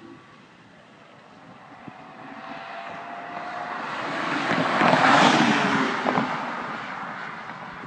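BMW E46 M3 with its S54 inline-six driving past: the engine and tyre sound swells as it approaches, is loudest as it passes about five seconds in, then fades away.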